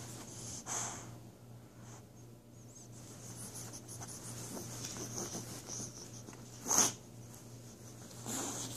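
Boxer dog sniffing and snuffling with its nose pushed into a quilted bedspread, the fabric rustling faintly. A few short, sharp blows of breath through the nose, the loudest about seven seconds in.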